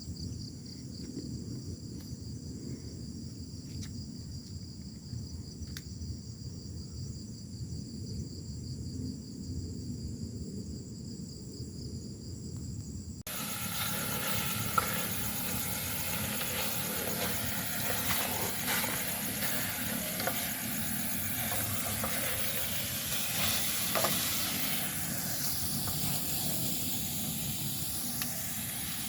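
Steady insect chorus, like crickets, over a low rumble. About thirteen seconds in it cuts suddenly to a louder, even hiss.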